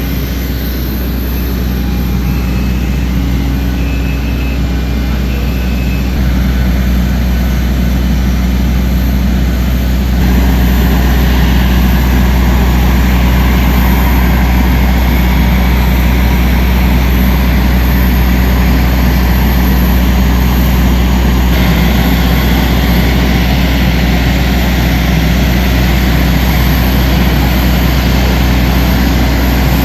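Steady low hum inside the cabin of a Boeing 737-800 parked at the gate before engine start, from the air conditioning fed by the auxiliary power unit. It steps up in level about ten seconds in.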